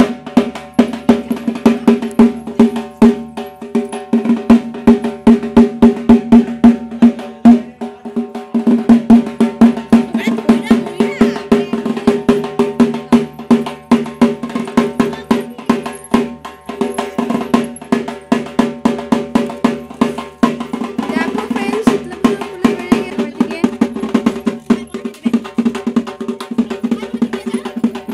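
Music with fast, steady drumming over a held, pitched tone underneath.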